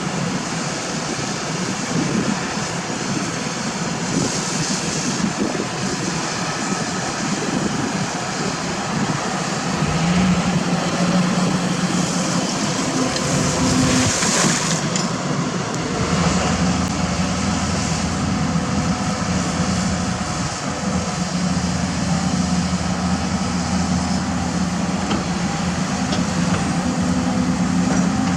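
Diesel engines of heavy earthmoving machinery running steadily. About ten seconds in, a deeper engine note comes up, and a lower rumble joins it a few seconds later as a machine works harder.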